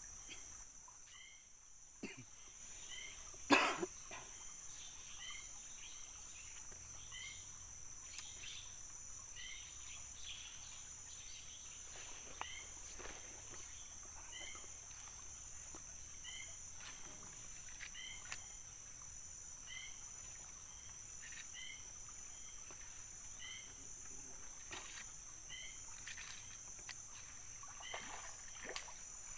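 Tropical streamside forest ambience: a steady high insect drone, with a short chirp repeating every second or two. One sharp knock sounds about three and a half seconds in.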